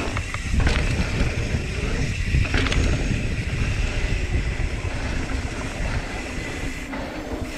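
Mountain bike riding fast down a packed dirt trail: a steady rumble of tyres and wind on the camera's microphone, with a few sharp knocks and rattles from the bike over bumps.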